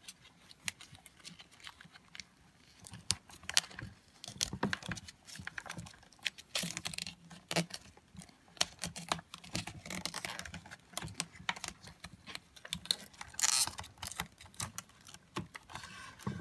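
Close handling noise of fingers wrapping black electrical tape around a crimped wire splice: irregular small clicks and rustles, with a few short rasps.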